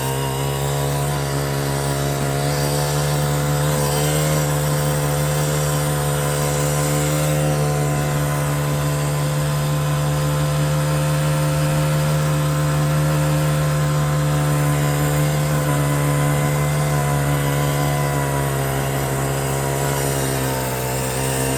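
ATV engine running steadily at high revs, a buzzing drone whose pitch sags slightly near the start and again near the end.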